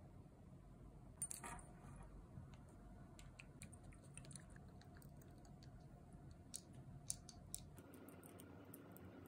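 Faint scattered clicks and taps of long gel nails and fingers handling a plastic-sleeved nail-sticker sheet and a small plastic bottle of gel remover, with a brief cluster of crinkling clicks about a second and a half in.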